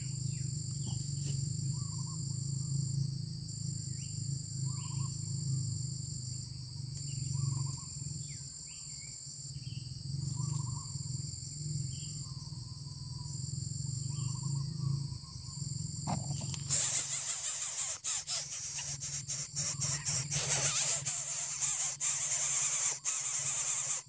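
Short bird calls recur over a steady low hum and a high insect drone. About two-thirds through, a loud, harsh hissing full of crackling starts suddenly and keeps on: greater coucal chicks begging as the adult comes to the palm-fibre nest, with the nest rustling.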